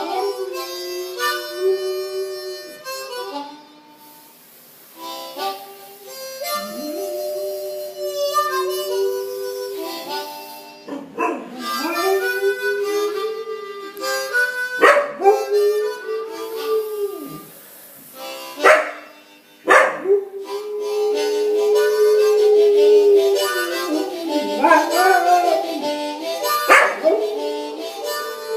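A boxer dog howling along to a harmonica: several long, wavering howls that bend down in pitch at their ends, over the harmonica's held notes and chords.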